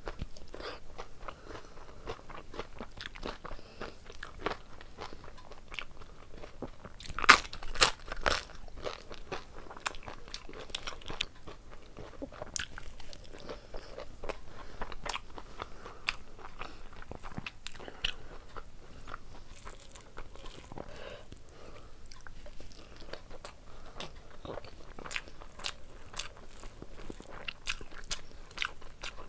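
Chewing and crunching of a person eating rice and curry by hand, with a few much louder crunches about seven to eight seconds in.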